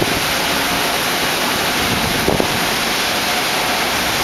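Heavy summer-storm rain pouring down in the wind, a loud, steady, even rushing noise.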